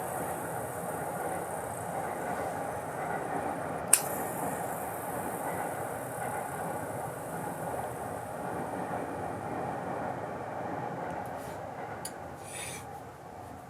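Abu Garcia Ambassadeur 5500C baitcasting reel's spool spinning freely with a steady whirr, slowly winding down near the end, with one sharp click about four seconds in.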